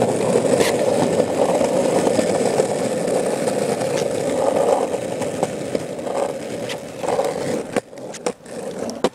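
Cruiser skateboard rolling over rough asphalt on longboard wheels, a steady rumble. The rumble dies down near the end as the board slows, with a few sharp knocks.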